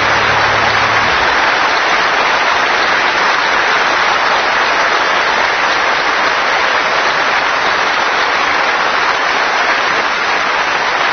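Concert audience applauding steadily, a dense even clatter of many hands clapping, at the end of a song.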